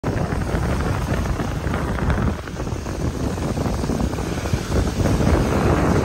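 Small sea waves breaking and washing over a pebble beach, with wind blowing on the microphone.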